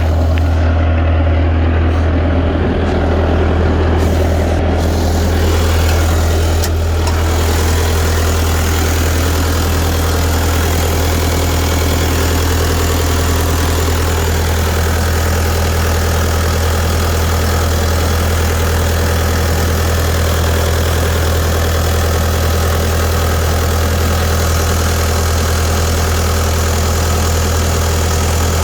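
Bobcat T300 skid steer's Kubota diesel engine running steadily at a constant speed, a deep even hum with no revving.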